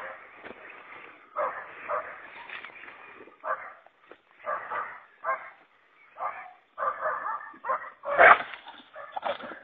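An animal crying out again and again in short calls, about one a second, the loudest about eight seconds in.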